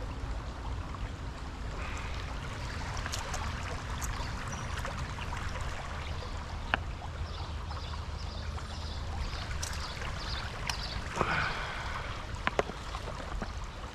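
Creek water running steadily, with a few sharp clicks over it.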